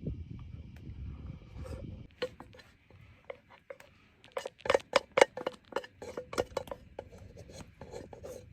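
A quick run of sharp taps and clinks, each with a short ring, loudest in the middle and thinning out towards the end, after a low rumbling noise that stops about two seconds in.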